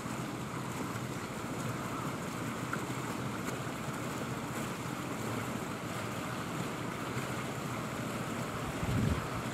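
Wind rushing over the camera microphone in a steady outdoor noise, with a stronger gust buffeting the mic near the end.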